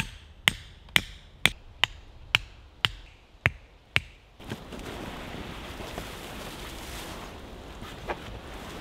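A wooden tent peg being hammered into forest ground: about eight sharp knocks, roughly two a second. After a few seconds the knocking stops and a steady rushing noise takes over.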